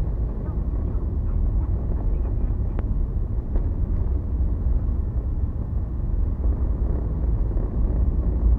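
Car driving on a road, heard from inside the cabin: a steady low rumble of engine and tyre noise, with two faint clicks about three seconds in.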